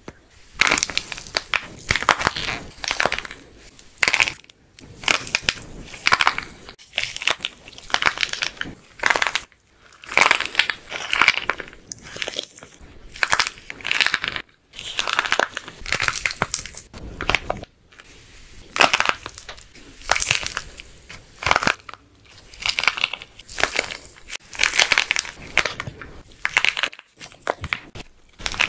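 Dried plaster clay coating a balloon being cracked and crushed by hand: repeated bursts of crunchy crackling a second or two apart, with short pauses between squeezes.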